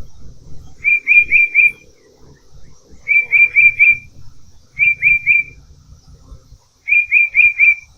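A bird singing loudly: phrases of three or four quick, clear whistled notes, repeated about every two seconds, four times.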